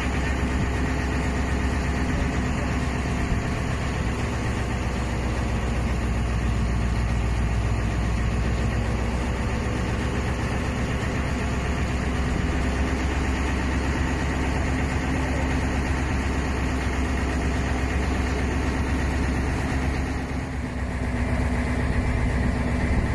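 A river boat's engine running steadily as the boat cruises, a constant low drone. Near the end it eases off briefly and then picks up again.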